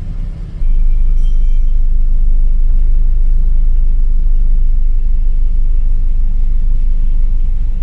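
2008 Chevrolet Silverado's engine running after starting, a steady low rumble that steps up in loudness just under a second in.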